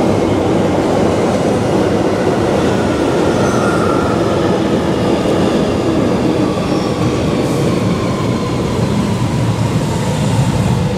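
Articulated electric tram approaching on street tracks: a steady rumble of wheels running on the rails, with a faint high whine that slowly glides in pitch.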